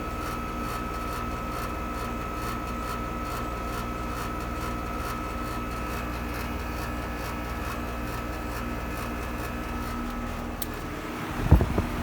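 2016 Amana heat pump running steadily in cooling mode: a constant hum and fan rush with a few steady tones, one high tone dropping out near the end. In the last second, a few loud low thumps rise above it.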